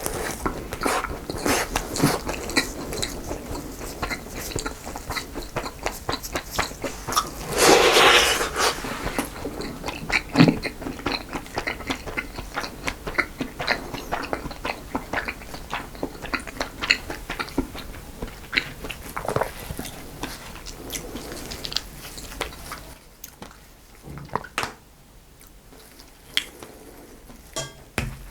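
Close-miked chewing and mouth sounds of someone eating cream cake and choux pastry, with many small wet clicks and crackles. There is a louder noisy burst about eight seconds in, and it quietens near the end.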